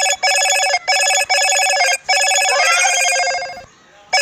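Loud electronic ringing tone: one steady buzzy pitch broken into pulses of roughly half a second to a second and a half, cutting off near the end.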